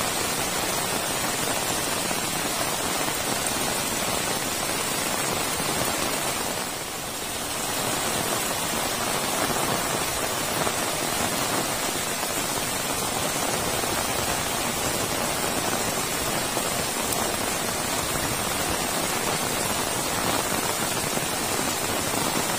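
Heavy rain falling steadily: a dense, even hiss of downpour on leaves, ground and roofs, dipping slightly for a moment about seven seconds in.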